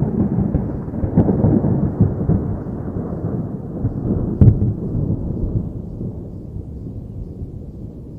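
Rolling thunder: a deep rumble that dies away gradually, with two sharper cracks, one about a second in and a louder one past the middle.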